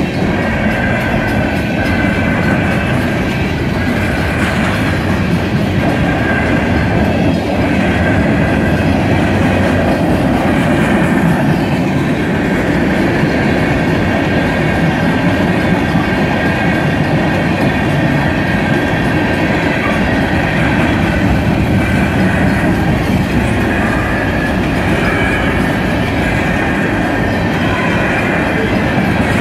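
Freight train of covered hoppers and tank cars rolling steadily past at a grade crossing: a loud continuous rumble of wheels on rail, with a steady high ringing tone above it.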